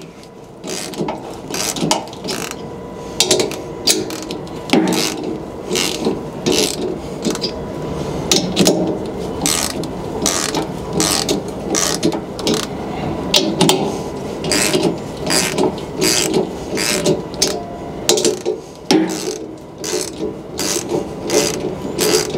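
Hand ratchet wrench clicking through repeated short strokes, irregular single clicks and quick runs of clicks, as studs on a Speed Queen washer's rear trunnion are tightened to press out the bearing housing.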